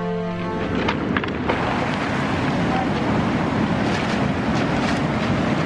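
Background music cuts off about half a second in, giving way to ocean surf breaking on a pebble shore with wind buffeting the microphone. A few sharp clicks sound through it.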